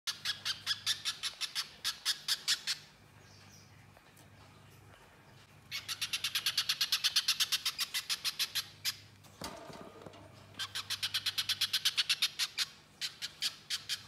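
Little spiderhunter singing: long runs of rapid, sharp, high notes repeated about five or six times a second, in three bursts with pauses between, over a faint low hum.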